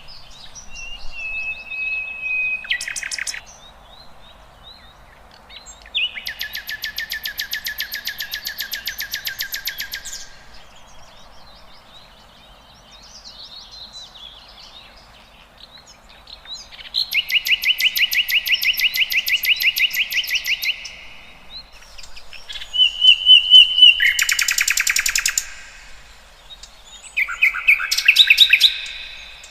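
Wild songbirds singing: four loud, rapid trills of a few seconds each, with short whistled notes and softer calls in between.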